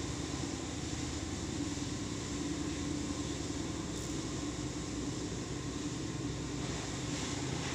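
Steady droning background noise with a low hum, unchanging throughout, with no distinct knocks or calls.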